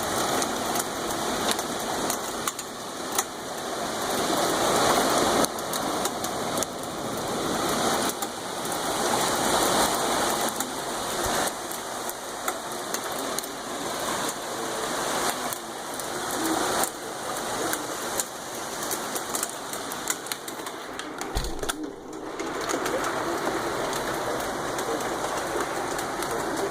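Hail and heavy rain falling on hard surfaces: a dense clatter of many small impacts over a continuous hiss of rain, easing briefly about three-quarters of the way through.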